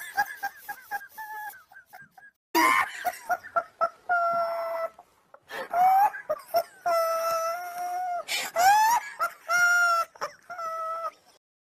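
A very high-pitched voice wailing and crying in long, drawn-out notes, some bending upward, after a few short whimpering sounds at the start.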